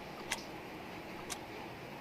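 Steady ticking: sharp ticks, one about every second.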